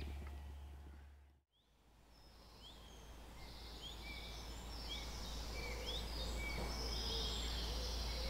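Woodland ambience fades out to silence about a second in, then fades back in with small birds chirping, many short quick calls, over a steady low rumble.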